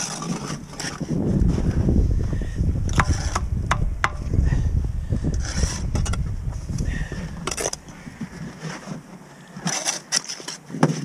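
Bricklaying trowel work: a steel trowel scraping mortar and tapping on concrete blocks, with a few sharp taps. Under them is a low rumble that eases off about eight seconds in.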